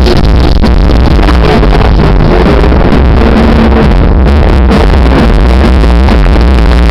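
Loud electronic dance music played through a car audio system, with very heavy, steady bass.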